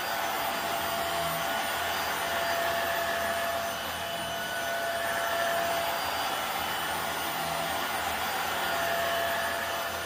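Hoover WindTunnel Air Steerable upright vacuum cleaner running steadily while pushed over carpet, on its test run after the roller brush and belt were refitted: a constant rush of air with a faint steady whine.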